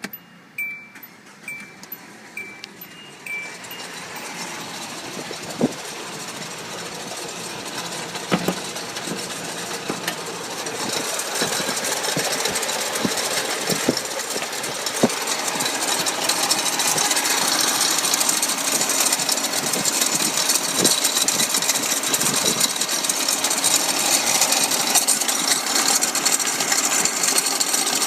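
A few short beeps, then a Hyundai Elantra's failing A/C compressor rattling and knocking with the engine running. The noise grows louder over the first ten seconds and then holds steady: the sign of a badly worn compressor.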